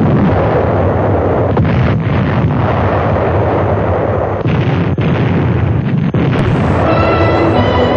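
Old film soundtrack of a bombing attack: a continuous din of explosions and blasts. Orchestral music comes in near the end.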